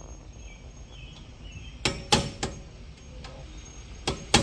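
Hammer blows on the wheel hub of a 2004 Honda Odyssey: three sharp metal strikes about two seconds in, then two more near the end.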